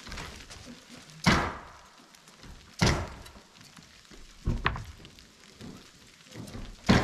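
Four loud thumps, a second or two apart, over a light patter of sleet.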